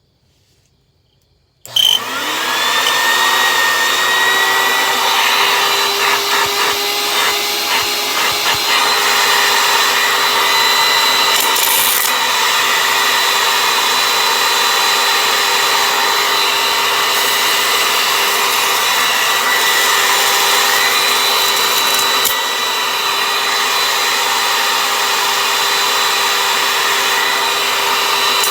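Oreck bagged vacuum cleaner switched on a couple of seconds in: the motor spins up with a rising whine, then runs steadily at full speed with a loud airflow rush and a high whine. The airflow sound wavers a few times shortly after it reaches speed.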